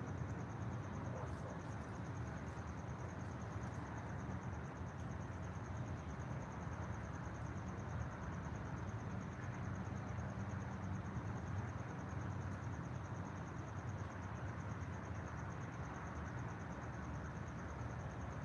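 Insects, cricket-like, trilling steadily in a high, rapidly pulsing note over a steady low rumble.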